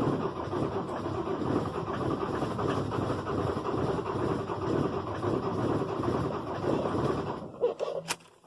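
Ford Transit 2.4 diesel turning over rhythmically on its starter without catching, then the cranking stops abruptly about seven and a half seconds in, followed by a couple of sharp clicks. It is a cold-start failure: none of the four glow plugs work and the battery is weak.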